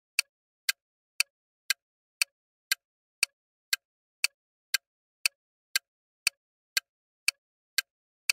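Countdown-timer ticking sound effect: short, sharp clock-like ticks at a steady two per second, marking the seconds running out to answer a quiz question.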